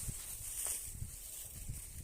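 Wind buffeting the microphone in a low, uneven rumble, with rustling hiss over it.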